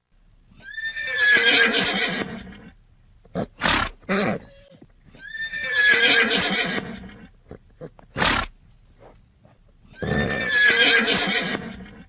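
Horse neighing: the same whinny three times, about four and a half seconds apart, each lasting about two seconds. A short, sharp burst of noise follows each of the first two.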